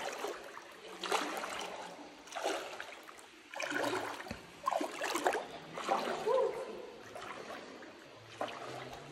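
Shallow water splashing and sloshing in irregular bursts as people wade through it, over a faint steady trickle of water.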